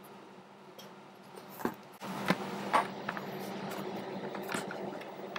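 A few sharp clicks and light scrapes from a hard plastic pistol frame being handled, over a steady low hiss; the noise level steps up about two seconds in.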